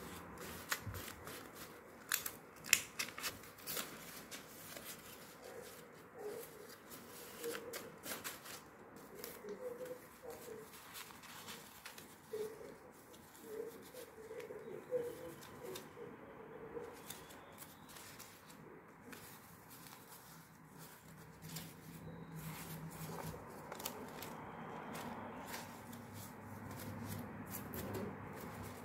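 Old paper banknotes being handled and sorted on a wooden table: paper rustling with short snaps and flicks as notes are picked up, riffled and laid down, the snaps densest in the first few seconds.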